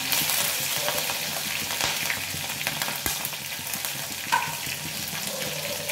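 A tempering of cumin and mustard seeds, curry leaves and green chillies sizzling and crackling steadily in hot oil in a kadhai.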